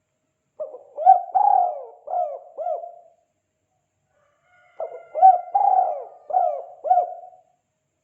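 Spotted dove (tekukur) cooing the 'kuk 2' call: two phrases a couple of seconds apart, each a run of low cooing notes ending in two short 'kuk' notes.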